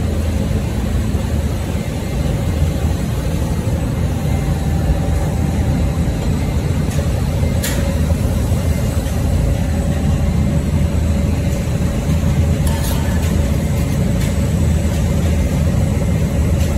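Plant-protein food extruder running steadily while extruding, with a constant low hum and a steady whine above it. A couple of brief sharp clicks come about halfway and three quarters of the way through.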